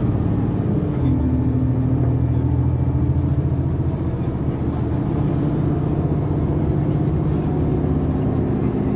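Mercedes-Benz Citaro G articulated natural-gas bus (NGT) heard from on board, its engine running steadily under way with a low drone. The engine note steps up about a second in.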